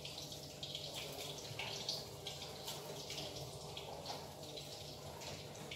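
Hot cooking oil sizzling and crackling in a frying pan where tempeh is being fried: an uneven hiss with many small pops.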